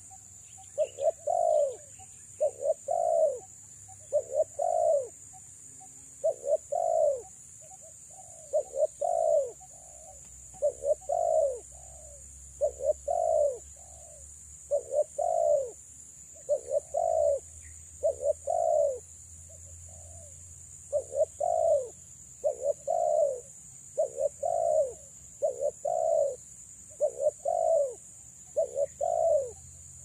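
Female spotted dove cooing over and over: short coos running into a longer, falling note, one phrase about every two seconds, with a brief pause about two-thirds of the way through.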